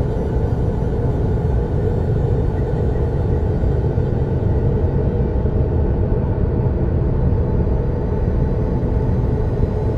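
Steady, low ambient drone: a dense, unchanging rumble in the style of 'planet sounds from space' soundtracks.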